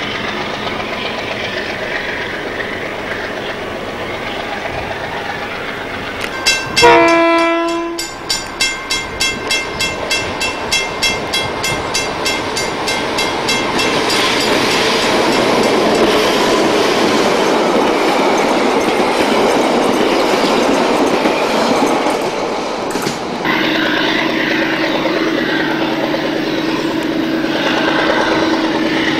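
Diesel-hauled trains running by on the line. About a quarter of the way in, a diesel locomotive sounds a short horn blast. Its wheels then clatter over the rail joints in a quick, even rhythm as it passes close. After a sudden cut near the end, a steady drone comes from another approaching diesel train.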